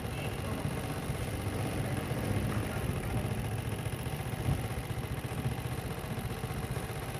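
Steady low rumble with a couple of soft thuds near the middle, from ammunition burning and going off at a distant depot fire.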